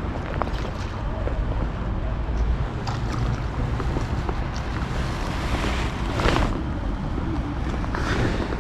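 Wind buffeting the microphone: a steady low rumble, with a brief louder rush of noise about six seconds in.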